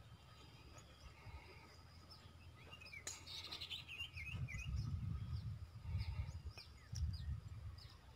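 Small birds chirping and calling, with a cluster of quick chirps about three seconds in. A low wind rumble on the microphone grows louder in the second half and is the loudest sound.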